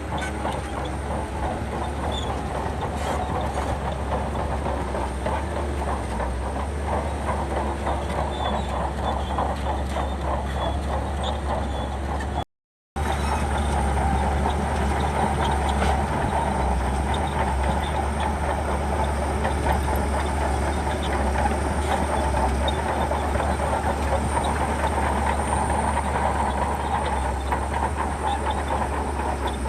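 Shantui crawler bulldozer working: its diesel engine running steadily under load while the steel tracks clank and rattle. The sound cuts out for a moment about twelve seconds in.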